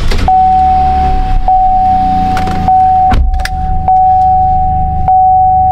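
Chevy Colorado pickup engine started and running, a steady low rumble with a loud knock about three seconds in. Over it a steady high tone with a soft tick about every second.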